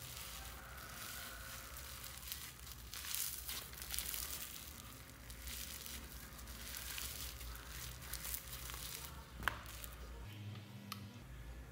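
Hands squeezing, stretching and pulling apart a lump of fluffy green slime, giving faint crinkly crackling and soft squishing, with a single sharp tap near the end.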